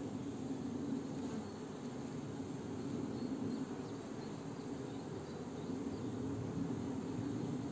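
Buckfast honeybees humming steadily over an open hive, with the colony's bees covering the brood frame being held up.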